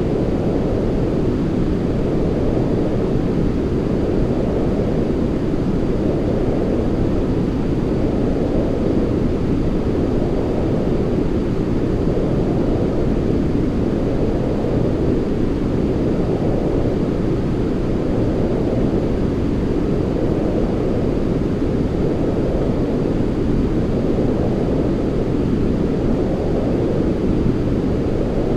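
Continuous deep, muffled rushing noise of a sleep 'white noise' track, steady in level, with a gentle swell every few seconds.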